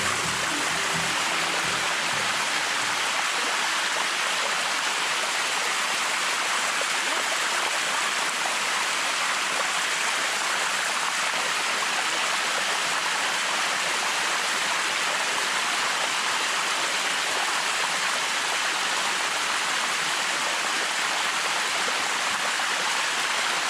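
Steady rush of water cascading down the Bua Tong sticky waterfall, an even hiss with no break.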